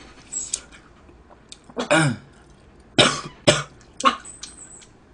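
A man coughing several times after a mouthful of food went down the wrong way: one strained cough about two seconds in, then three sharp coughs in quick succession.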